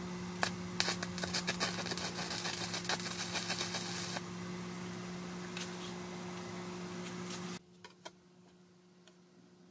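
Stick (MMA) arc welding from an inverter welder: a dense, irregular crackle of the arc on steel for about four seconds, starting about half a second in, over a steady hum. The crackle stops, the hum continues, and then the sound drops abruptly to quiet about three quarters of the way through.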